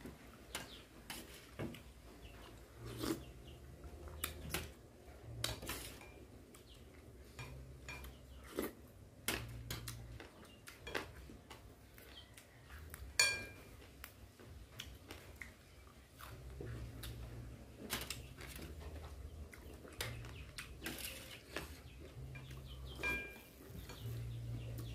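Metal spoon scraping and clinking against a stainless steel tray in irregular short knocks, with a sharper ringing clink about halfway through and another near the end.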